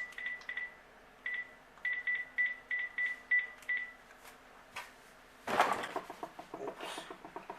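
Phone keypad beeps, about a dozen short single-pitched high beeps in quick runs as a number is dialed. Then, about two seconds before the end, a phone's electronic ringer starts with a fast warbling trill, louder than the beeps.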